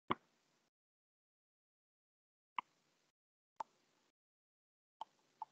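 Near silence, broken by five short faint clicks spread unevenly through the few seconds.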